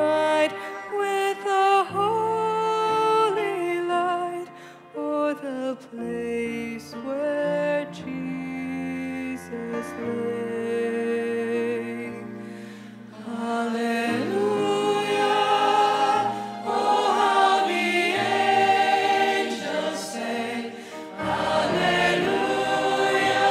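Choir singing a sacred Christmas piece. The singing grows fuller and louder about halfway through.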